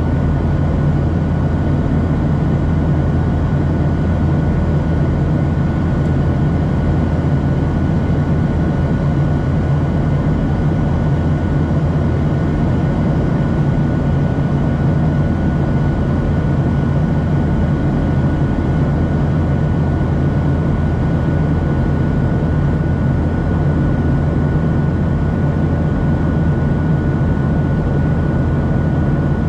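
Boeing 737-700's CFM56-7B jet engines heard from inside the passenger cabin as a loud, steady drone: a low rumble with a thin steady high tone above it.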